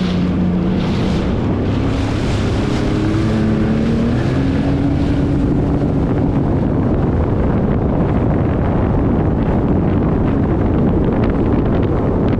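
Sea-Doo FishPro personal watercraft engine running under way, its pitch climbing over the first half as it speeds up. Heavy wind buffets the microphone and water rushes past.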